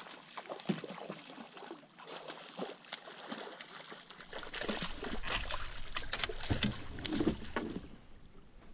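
Water splashing and sloshing at a small fishing boat, with many short clicks and knocks of handling. A low rumble sets in about four seconds in.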